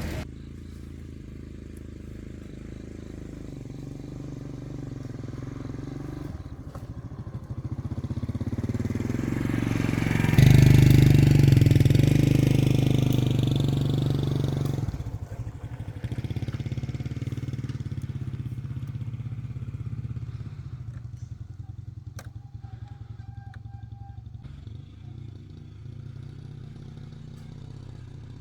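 Motorbike engine running steadily while riding, its hum swelling to its loudest about ten seconds in for around four seconds before settling back.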